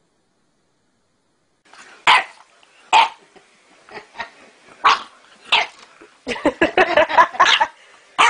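A dog barking, starting about two seconds in: single sharp barks roughly a second apart, then a quick flurry of barks near the end.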